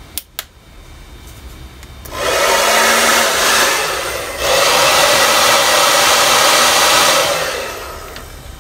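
Handheld hair dryer blowing: a loud, even rush of air over a low motor hum that starts about two seconds in, drops briefly about halfway, comes back, then dies away near the end. Two sharp clicks come just after the start.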